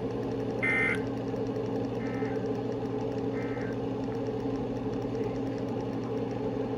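Emergency Alert System end-of-message data tones: three short warbling bursts about 1.3 seconds apart, the first the loudest, over a steady low hum and hiss from the broadcast audio, marking the end of a warning.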